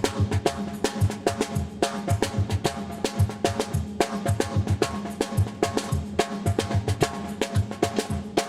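Drums playing a steady, repeating Brazilian groove: dense strikes with ringing drum tones, a sustained low tone humming underneath.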